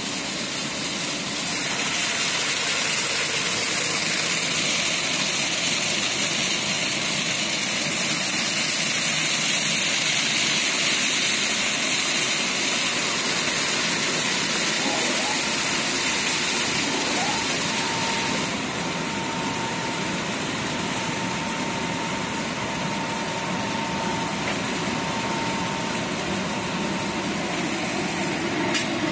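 Automatic tunnel car wash running: rotating brushes scrubbing a car under water spray, a steady hiss that grows louder about a second and a half in and eases a little past the middle. A faint steady whine joins past the middle.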